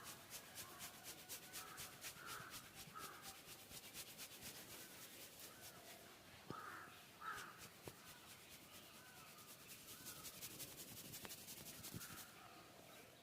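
Hands working a head massage, a fast even rhythm of soft rubbing or patting strokes, quiet. Crows cawing in the background several times, loudest twice in a row about halfway through.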